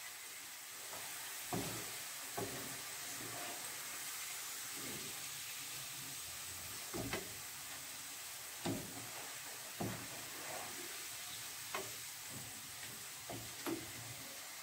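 Browned sliced onions sizzling steadily in hot oil in a non-stick frying pan, with a wooden spatula scraping and knocking against the pan every second or two as they are stirred.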